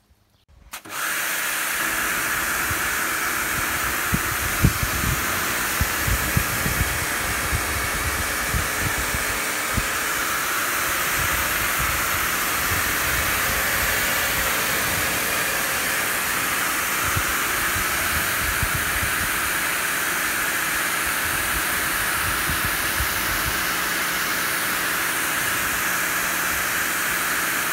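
Electric pressure washer spraying a high-pressure water jet onto a tractor's bodywork and tyres: a steady, loud hiss that starts about a second in, with uneven low splattering as the jet hits the panels.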